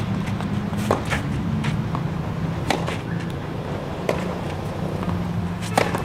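Tennis rally on a clay court: sharp cracks of rackets striking the ball and the ball bouncing, a second or two apart at uneven intervals, over low sustained background music.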